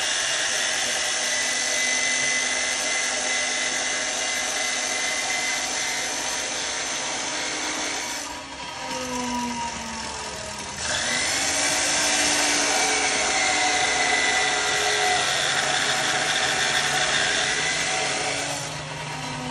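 Abrasive cut-off saw (chop saw) grinding through a steel channel: a loud, harsh grinding with a motor whine that sags and recovers as the disc is fed into the cut. The grinding breaks off about eight seconds in and resumes some two and a half seconds later.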